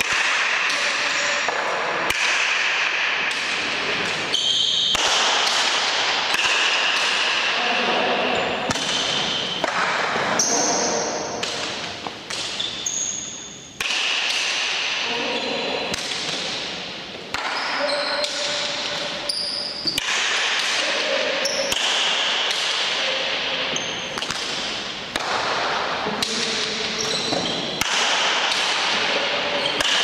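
Basque pelota rally: the ball cracks off wooden paletas and the walls again and again, each strike ringing out in a large hall.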